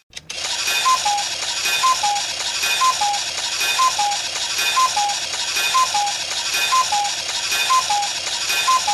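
Cuckoo clock going off: its two-note falling 'cuckoo' call repeats about once a second, nine times, over a busy rattle of the clock's mechanism. The sound drops out for a moment at the very start.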